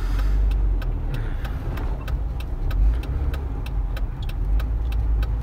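Car cabin while driving: a steady low rumble from the engine and road, with an even ticking at about three or four ticks a second over it.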